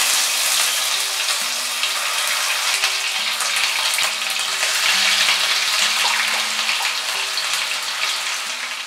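Onion paste sizzling hard as it fries in hot ghee and oil with whole spices in a kadai, a dense steady hiss that starts suddenly as the paste hits the fat. Near the end a spoon begins stirring the paste.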